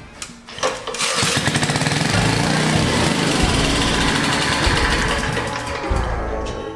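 Vintage Briggs & Stratton single-cylinder engine on a power trowel, started on choke, catching about a second in and running steadily for about five seconds, then fading near the end.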